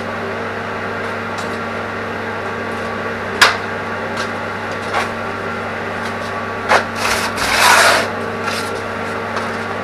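A steady electrical hum, with one sharp click about a third of the way in, a few lighter knocks, and a short scraping rasp about three-quarters of the way through.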